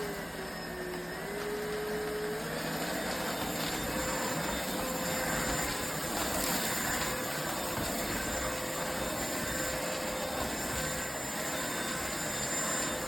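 iwoly C150 cordless stick vacuum running steadily, its motor pitch briefly dipping and recovering in the first couple of seconds.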